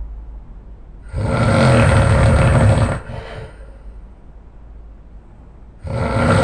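A man snoring very loud: one long snore of about two seconds beginning about a second in, then after a quiet gap a second snore starting near the end.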